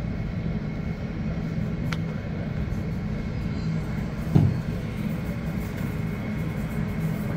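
Steady, muffled low rumble of a Boeing 737's jet engines as it taxis to the gate, heard through the terminal window glass, with a faint steady high whine. A single dull thump about four seconds in.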